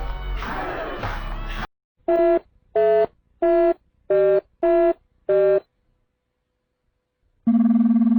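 Six short electronic beeps of slightly alternating pitch, like a phone keypad being dialled, then a pause of about two seconds. A loud steady buzzing tone starts near the end.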